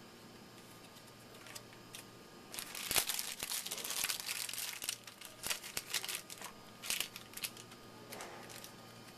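A baseball card pack wrapper being torn open and crinkled by hand, a dense run of crackling and rustling that starts about two and a half seconds in and dies down to a few crackles near the end.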